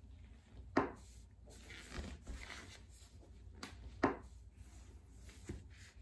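Toe joints cracking as hands bend the toes of a bare foot: a few sharp pops, the loudest about a second in and about four seconds in, with soft rubbing of hands on skin and clothing between them.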